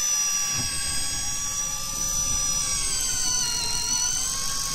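Electric deep-drop fishing reel (CX-4MP) motor whining steadily as it winds line up under the weight of a hooked fish, its pitch wavering slightly and dipping briefly about three and a half seconds in.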